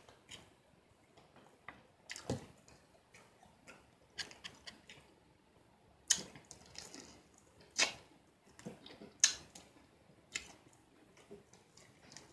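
Close-up eating sounds: scattered wet mouth clicks and lip smacks as fried chicken is chewed, about one every second or so at irregular intervals.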